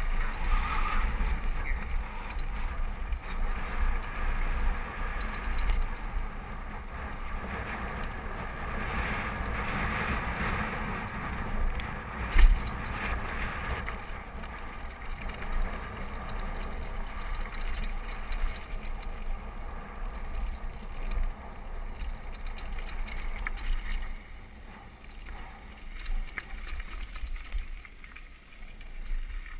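Downhill mountain bike riding fast over a dirt and gravel trail: wind buffeting the microphone over a steady rumble of tyres and bike. There is one sharp knock about twelve seconds in, and the noise is quieter for the last few seconds.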